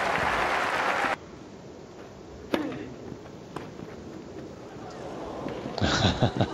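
Crowd applause that cuts off abruptly about a second in, then tennis balls struck by rackets on a grass court, a sharp pop about two and a half seconds in and another a second later. Near the end the crowd breaks into cheering and applause.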